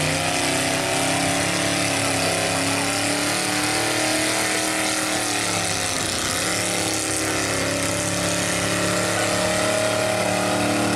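Small-block V8 gas 4x4 pulling truck running hard under load as it drags a weight-transfer sled. The engine's pitch wavers, dips about six seconds in, then climbs again.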